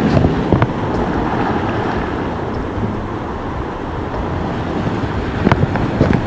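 Sea waves washing against shore rocks, with wind buffeting the microphone, a steady rushing noise. A few short sharp knocks cut through it, two of them near the end.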